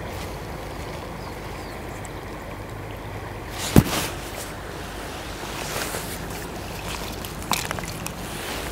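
Steady rush of flowing river water. A sharp knock comes about four seconds in, the loudest sound, with a few lighter ticks near the end.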